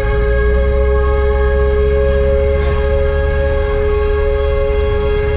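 A loud, steady two-note horn tone held without a break, its pitch unchanging, over the low rumble of a vehicle.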